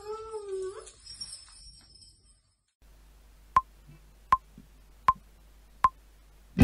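A child's voice briefly at the start, then after a moment of silence four evenly spaced metronome clicks with a high ping, a little under a second apart: a count-in for an electric guitar piece.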